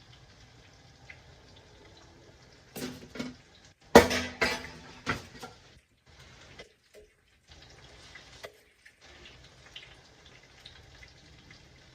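Okra frying in oil in a cast iron skillet, a faint steady sizzle, with a cluster of clattering knocks of a utensil against cookware about three to five seconds in.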